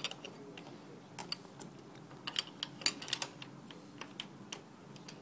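Light, irregular clicks and taps of small metal hardware being handled, as screws and a trim clip are fitted back onto the base of a cubicle panel, with a cluster about a second in and a busier run in the middle.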